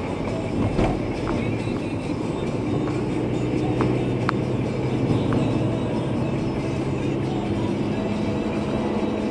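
A car driving steadily, heard from inside the cabin: a continuous engine hum and road noise, with a few faint clicks.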